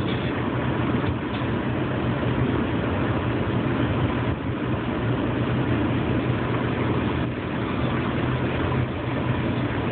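Steady hum of a car heard from inside the cabin: low engine and road noise.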